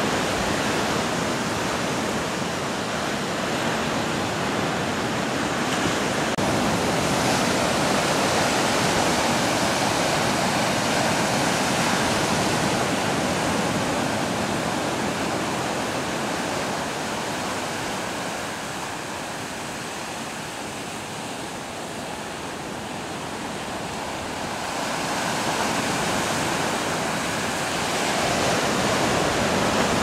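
Caribbean Sea waves breaking and surf washing over rocks and up the shore: a continuous rush that swells and eases, softer for a few seconds past the middle and building again near the end.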